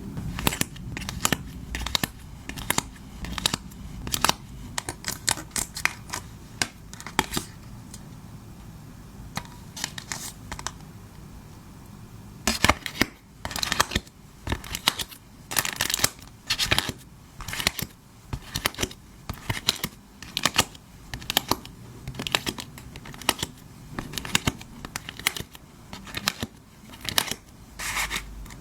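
Photo cards and their plastic sleeves and packaging being handled by hand, with a string of sharp crinkles and crackles. The crinkles come louder and more regularly, about one a second, from about halfway through.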